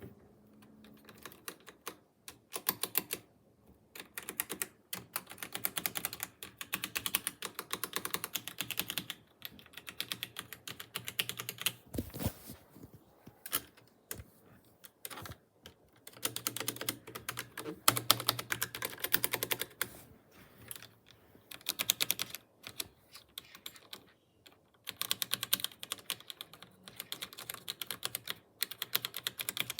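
Computer keyboard being typed on rapidly, in bursts of fast clicking keystrokes with short pauses between runs.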